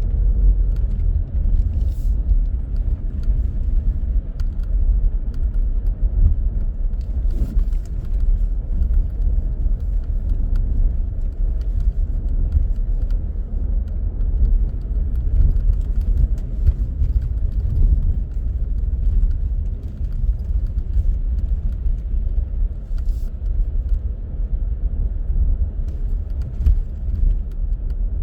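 A car being driven in city traffic: steady low rumble of engine and road noise, with a few faint clicks.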